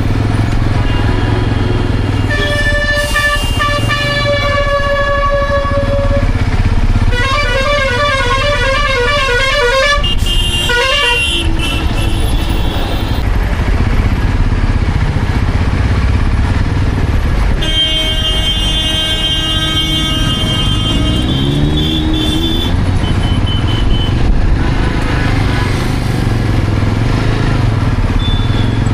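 Motorcycle engine running steadily while riding through traffic, with vehicle horns honking several times: a long steady horn, then a warbling, pulsing one, and later another long horn.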